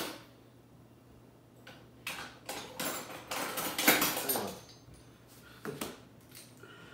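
Kitchen clatter: dishes and utensils being handled and set down on a countertop, a run of clinks and knocks starting about two seconds in, loudest around the middle, with one more knock near the end.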